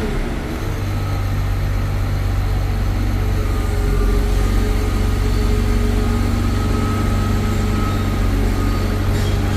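Caterpillar 950H wheel loader's six-cylinder C7 diesel engine running steadily after its overhaul, a deep even hum that firms up slightly about a second in.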